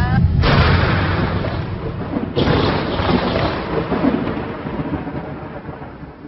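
Loud rumbling noise with a hiss over it, in the manner of trailer sound design. It surges suddenly about half a second in and again about two seconds later, then fades away.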